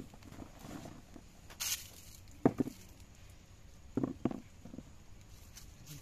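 Air potato bulbils dropped into a plastic basin: a few irregular hollow knocks, a single one then two close together, after a brief rustle.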